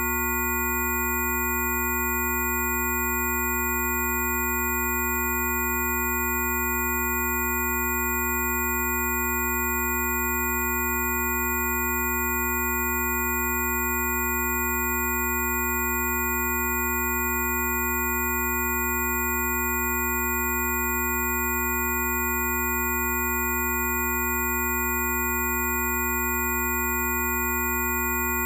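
Rife frequency tones: several steady pure sine tones sounding together, from a low hum up to a high whistle, holding unchanged, with faint ticks repeating a little over once a second.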